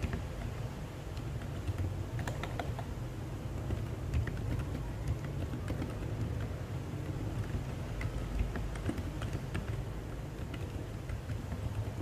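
Typing on an NJ68 mechanical keyboard fitted with Boba U4 silent tactile switches and DSA keycaps: soft, muffled keystrokes in a quick, irregular run, over a steady low hum.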